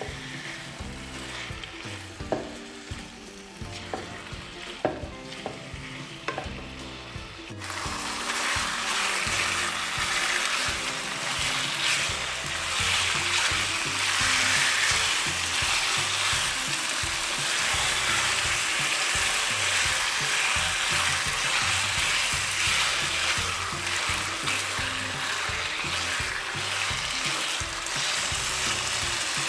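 Boneless chicken frying in hot oil with vegetables and garlic-ginger paste, sizzling as it is stirred in the pan. A few sharp knocks come in the first several seconds. About eight seconds in the sizzle abruptly becomes much louder and stays steady.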